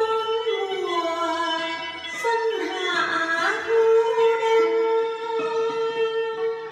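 Vietnamese sung poetry recitation (ngâm thơ): a drawn-out vocal line that slides down in pitch, wavers, then holds one long note, over plucked-string accompaniment.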